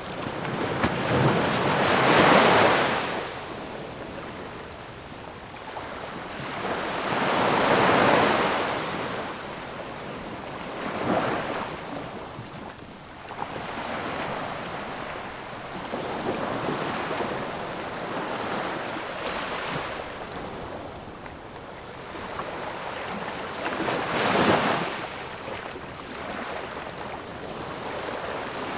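Sea waves washing onto a beach in slow surges of rushing surf, each swelling and then fading; the biggest breaks come near the start, about a quarter of the way in, and near the end.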